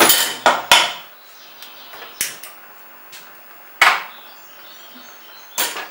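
Stainless steel cooking pots knocking and clanking as they are moved about on a gas stove's grates and set down on the counter. There are several sharp knocks, three of them in the first second.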